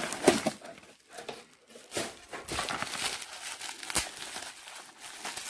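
Plastic bubble wrap crinkling and rustling as hands pull it apart to unwrap a small item, in irregular crackly bursts with a sharp click about four seconds in.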